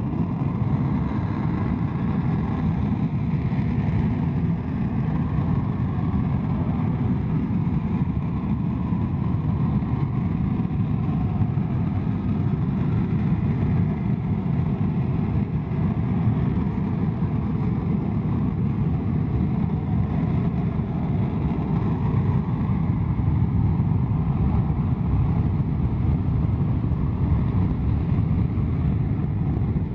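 Panavia Tornado's twin RB199 turbofan jet engines running up on the runway: a loud, steady roar, with the afterburners lit near the end for take-off.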